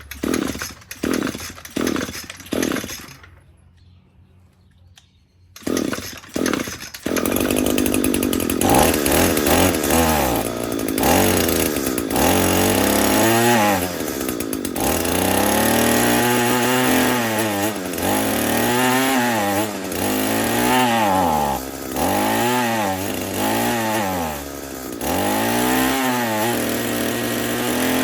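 Echo SRM-225 string trimmer's two-stroke engine being pull-started with the choke on: a series of quick starter-cord pulls, a pause, more pulls, then it catches about seven seconds in. It runs with the throttle revved up and down again and again, then settles near the end. The trimmer has a fault where it runs only on full choke, which the mechanic blames on a dirty carburetor.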